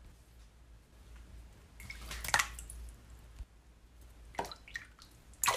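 Small water splashes and drips: a light splash about two seconds in, a few drips, then a louder splash near the end.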